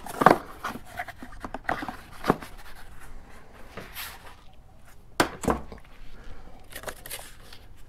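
Cardboard packing being pulled and shifted in the box around a steel motorcycle jack: scattered rustles, scrapes and short knocks. The sharpest knocks come just after the start, a little over two seconds in and about five seconds in.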